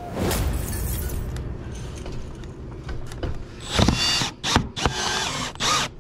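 Cordless drill driving a long coarse screw for a cable strap through vinyl siding into old asbestos shingle. The screw struggles to start, and the motor whines in several short trigger pulses over the last two seconds, after a few seconds of steadier, lower noise.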